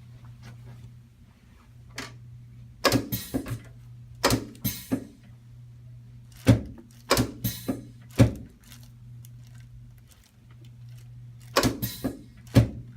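Drop sections of a pneumatic chiropractic table clunking as they give way under the adjuster's thrusts: a single knock, then several quick clusters of sharp knocks, some followed by short hisses. A steady low hum runs underneath.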